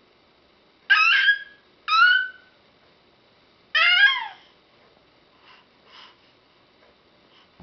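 Infant's high-pitched squealing calls, three in a row about a second apart, the last one longer and falling in pitch, followed by two faint short sounds.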